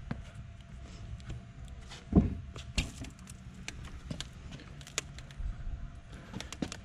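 Handling noises as a cured epoxy and apple-wood blank slides out of a white HDPE plastic mold: scattered clicks, taps and scrapes of the block against the plastic, with one louder knock about two seconds in.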